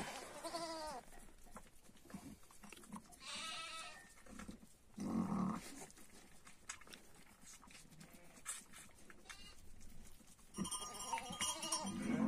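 Sheep bleating around a ewe that has just lambed: a call falling in pitch about a second in, another about three seconds in, a deep low call about five seconds in, and a longer call near the end.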